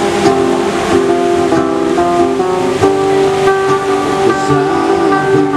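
Background music: an instrumental stretch of a song, with guitar and sustained melodic notes stepping from pitch to pitch.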